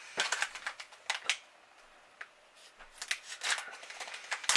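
A plastic bait package crinkling and rustling as it is handled and cut open with a folding knife: two bouts of sharp, crackly rustles with a short lull in between.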